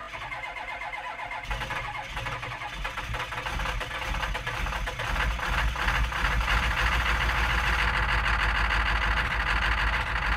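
A car engine starting and then running steadily, getting louder about five seconds in.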